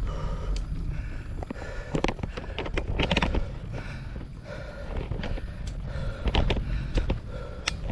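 Wind rumbling on the microphone of a bicycle on a climb, with the rider panting hard in a quick steady rhythm. Sharp clicks and rattles from the bike come in two clusters, around a third of the way in and again near the end.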